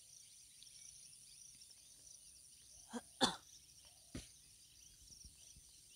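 Faint, steady, high-pitched chirring of insects, with a few short sounds near the middle, the loudest a little over three seconds in.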